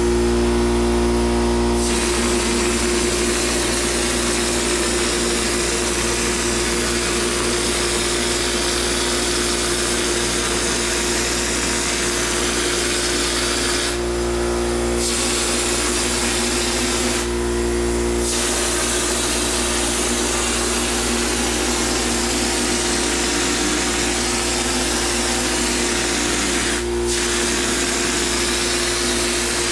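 Wallboard texture hopper gun spraying thick knockdown drywall mud with compressed air: a loud, steady hiss that starts about two seconds in and stops briefly three times as the trigger is let go. A steady motor hum runs underneath.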